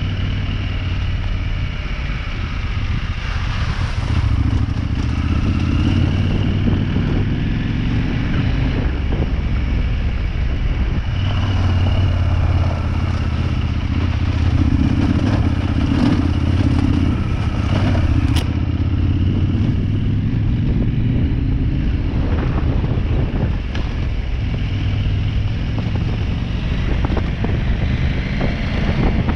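Adventure motorcycle engine running at trail speed, its note swelling and easing several times as the throttle is opened and closed. Occasional knocks and rattles come from the bike as it bumps over the rough trail.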